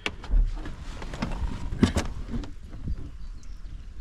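A few sharp knocks and clicks in the first half, then steady rain outdoors with birds chirping faintly.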